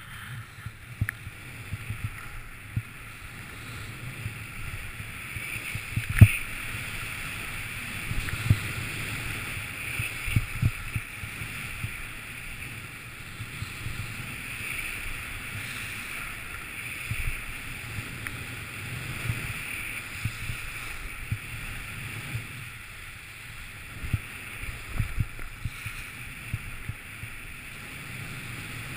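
Skis hissing and scraping over groomed snow on a steady downhill run, with air rushing past the camera microphone and irregular knocks, the sharpest about six seconds in.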